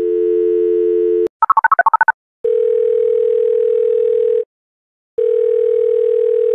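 Telephone dial tone, cut off after about a second by a rapid run of about eight touch-tone keypad beeps as a number is dialled. Then come two long ringback tones with a short gap between them, as the call rings through.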